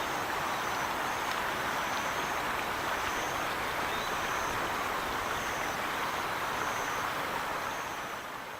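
Rain-swollen stream running steadily, an even rush of water, with a faint high chirp repeating about once a second; the sound fades out near the end.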